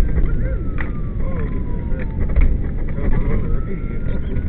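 Emergency vehicle siren wailing over heavy vehicle engine and road rumble: the wail slides slowly down in pitch through the first half and starts rising again near the end.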